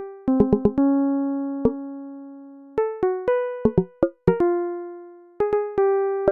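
Background music: a sparse keyboard melody of single struck notes that fade out, with a few quick runs of short notes between longer held ones.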